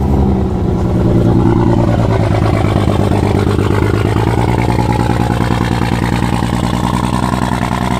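BMW N55 turbocharged inline-six, just started, idling roughly with an uneven, pulsing beat that sounds like a Harley. This is the sign of the failed high-pressure fuel pump that the owner's fault-code reading points to.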